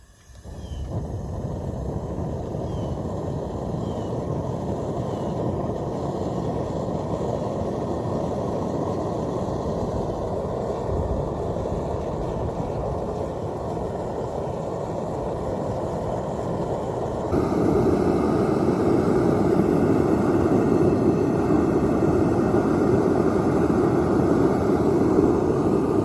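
Propane-fired Devil Forge melting furnace burner running with a steady roar; it jumps louder about seventeen seconds in.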